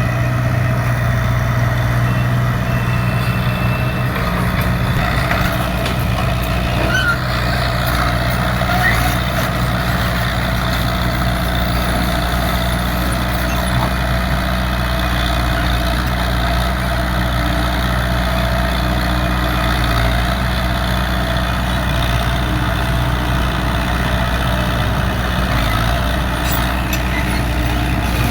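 Heavy diesel engine of a hydraulic excavator running steadily at a constant speed, with a few faint clicks and knocks over it.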